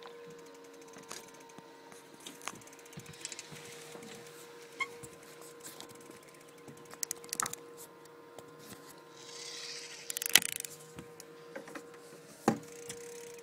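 Scattered clicks and knocks from gear being handled in a trolling fishing boat over a steady hum. There is a brief hiss about nine seconds in, then a sharp knock, and another knock near the end.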